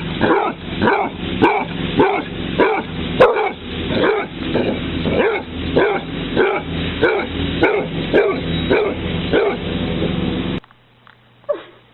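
Dog barking over and over in an even rhythm, about two barks a second, stopping abruptly near the end.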